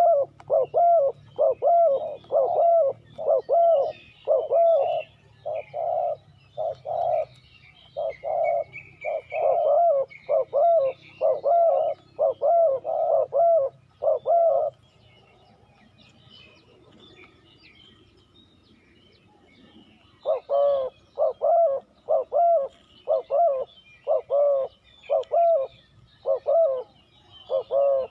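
Spotted dove cooing: a long run of short coo notes, about one and a half a second, a pause of about five seconds in the middle, then the cooing starts again. Small birds chirp faintly behind it.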